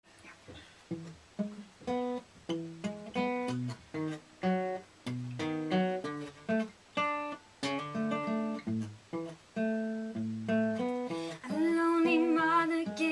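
Acoustic guitar playing a picked intro of single plucked notes and chords. About eleven seconds in, a singing voice comes in with a held, wavering note.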